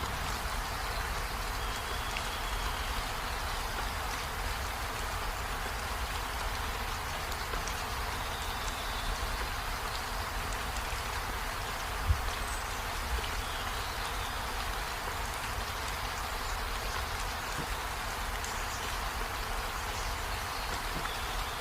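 Steady rain, an even hiss with a low rumble underneath. One sharp thump comes about twelve seconds in.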